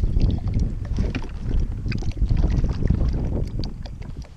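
Wind buffeting the microphone on a fishing kayak, with water lapping and small clicks and knocks against the hull; it eases a little near the end.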